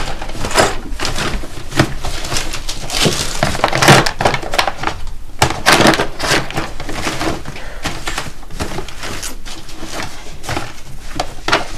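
Someone rummaging through papers and things at a wooden desk: rustling paper with irregular knocks and clatter.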